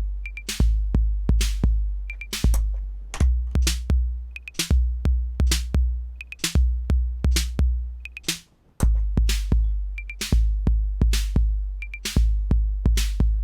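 TR-808-clone drum machine playing a programmed pattern: long low bass drum hits under sharp short hits, with pairs of short, high clave hits about once a second. The pattern cuts out for half a second about eight seconds in, then starts again.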